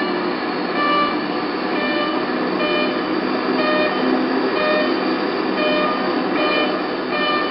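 Steady rushing noise with short electronic beeps about once a second over it, each beep at a different pitch from the one before.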